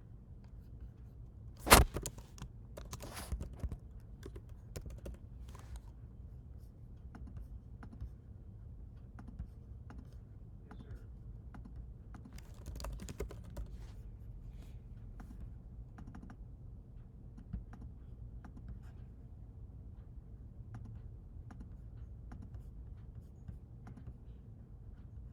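Typing and clicking on a computer keyboard in scattered short runs of key presses, with one sharp, loud knock about two seconds in.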